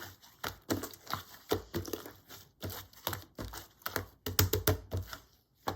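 Hands squeezing and poking a slightly gritty slime, giving quick irregular crackles and clicks, several a second.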